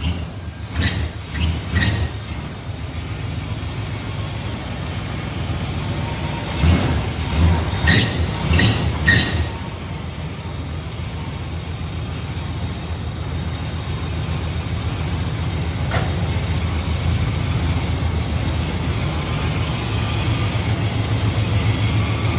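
Chevrolet 350 small-block V8 running cold, just after starting, having not been run in about three years. Several short loud bursts come in the first two seconds and again about seven to nine seconds in, then the engine settles to a steady run.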